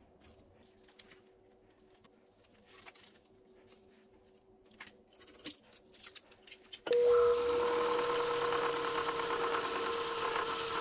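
Faint handling clicks and a low hum, then a woodworking power tool comes in suddenly about seven seconds in and runs steadily for about four seconds: a constant motor whine under a loud hiss of abrasion or cutting.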